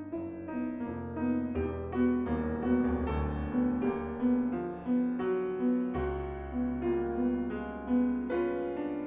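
Steinway grand piano being played: a flowing run of evenly repeated mid-range notes over held deep bass notes, with a new bass note struck about one and a half seconds in and again about six seconds in.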